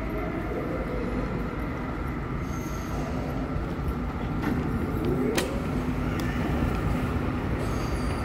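Underground station ambience: a steady low mechanical rumble with a few faint steady tones, slowly growing louder, and one sharp click about five seconds in.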